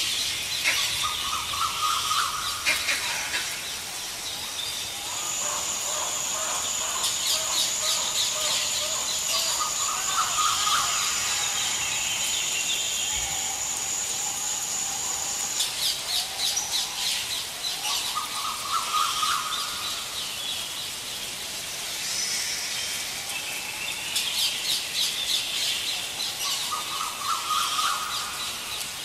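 Forest ambience with birds calling: a rising call repeats about every eight seconds, among bouts of rapid high trills. A steady high-pitched whine holds for about ten seconds in the first half.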